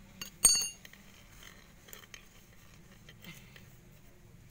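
A single sharp metallic clink about half a second in, ringing briefly at a few bright pitches, then faint scratching and a few light taps as the soil in a terracotta pot is loosened by hand.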